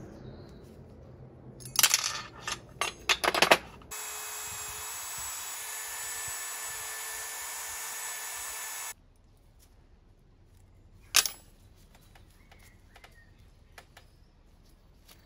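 Dremel rotary tool running steadily with a high-pitched whine for about five seconds while working on a small bicycle part, then cutting off suddenly. Before it, a quick run of sharp clicks and knocks from parts and tools being handled, and a single click a couple of seconds after it stops.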